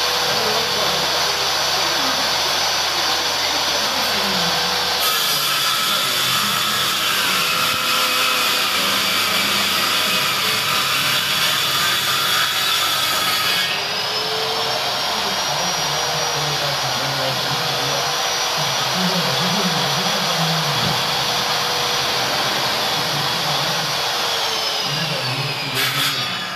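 Table saw running steadily and cutting through a large sheet of board, its sound shifting a couple of times during the cut and dropping away near the end.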